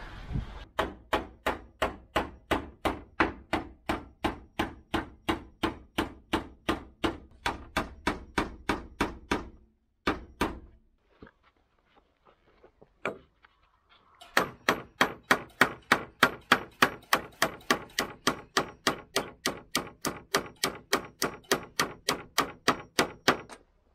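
Claw hammer driving nails into wooden cladding planks: a steady run of sharp strikes, about three a second. The strikes stop for a few seconds about ten seconds in, then resume at the same pace.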